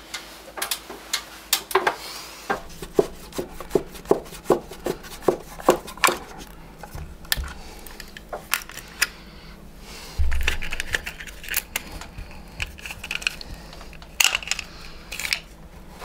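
Irregular small clicks and taps of plastic and metal as a wired alarm motion sensor is unscrewed and pried off its bracket with a screwdriver and pliers. There are two dull low thumps around the middle.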